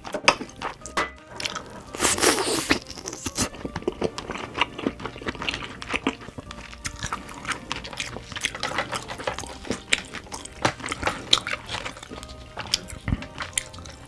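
Close-miked eating of steamed crab: crunching and cracking shell and chewing meat, a dense run of clicks and crackles, loudest about two seconds in.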